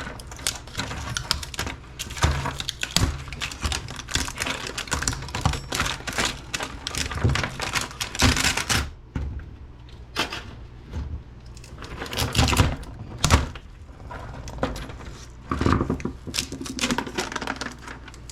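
Rapid clicking and clattering of plastic and metal laptop-screen parts being pried and pulled apart by hand, busy for about the first half, then sparser with a few louder clicks.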